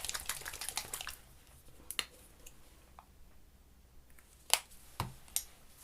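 Art supplies being handled on a table: a quick run of small clicks and rattles for about the first second, then a few separate light knocks and taps, the loudest about four and a half seconds in.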